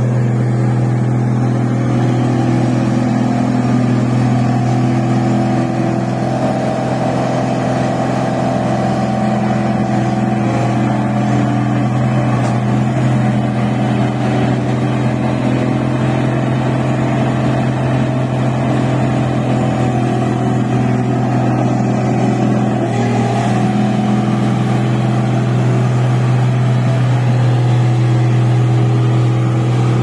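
Rice combine harvester running at work: a loud, steady drone of its engine and threshing machinery.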